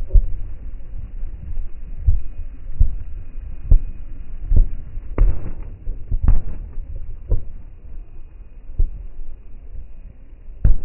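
Fireworks going off: a string of dull booms, about ten in eleven seconds at uneven spacing, over a steady low rumble.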